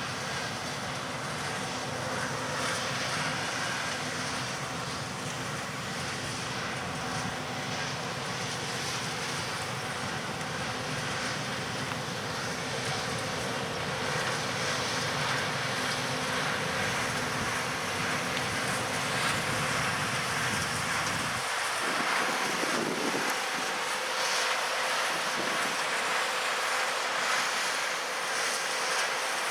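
Peanut combine and tractor machinery running steadily in the field, a continuous mechanical hum mixed with wind on the microphone. About twenty seconds in, the low rumble drops away suddenly while the higher-pitched hum carries on.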